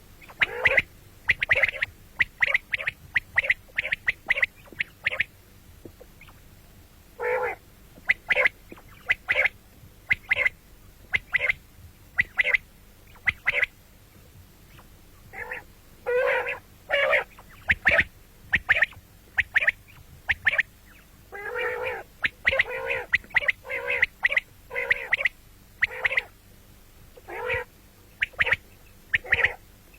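Common quail calling over and over: quick groups of short, sharp notes, now and then with a longer, lower note before a group.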